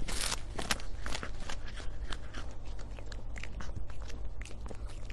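A cat chewing on a hard dried treat stick: quick, irregular crunches, a few each second.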